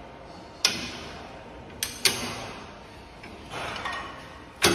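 Sharp metal clinks as a portable line boring machine's steel boring bar and fittings are handled and adjusted with a hex key: four knocks with short ringing tails, about half a second in, twice close together around two seconds, and once near the end, with softer handling noise shortly before the last.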